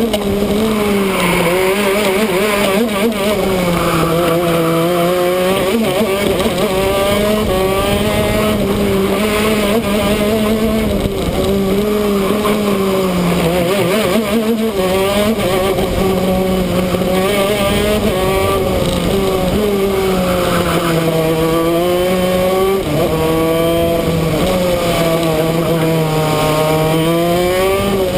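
Shifter kart's two-stroke engine running hard around the track, its pitch climbing and dropping over and over as it revs through the gears and slows for corners. It is heard close up from the front of the kart, over a steady rush of air and tyre noise.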